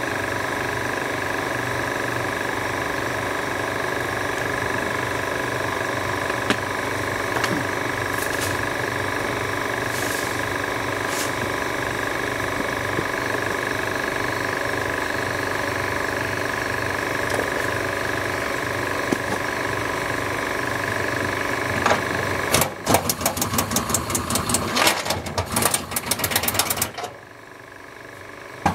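A steady mechanical hum made of several fixed tones, like a motor or engine running, then about four seconds of rapid clicking and rattling near the end.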